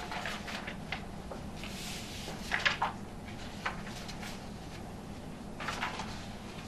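Paper pages being turned and handled: a few short rustles and light knocks over a steady low room hum, the loudest a little before the halfway point.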